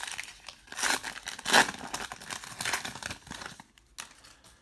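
Foil wrapper of a trading-card pack crinkling and tearing as it is ripped open by hand, in a run of rustles with the loudest rip about a second and a half in. A single sharp tap near the end.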